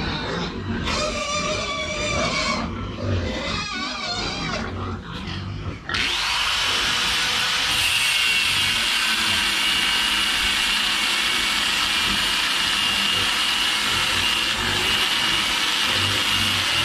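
Pigs squealing and grunting, then after a sudden cut about six seconds in, a steady machine noise with a high whine runs on.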